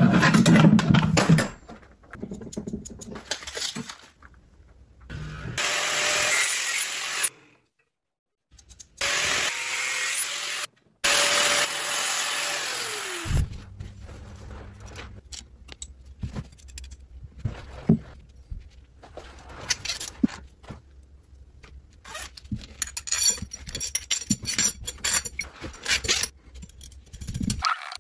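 A power tool cutting M6 stainless steel threaded rod in several short runs, its motor winding down about thirteen seconds in. After that, light clicks and taps of metal nuts and washers being handled and threaded onto the rods.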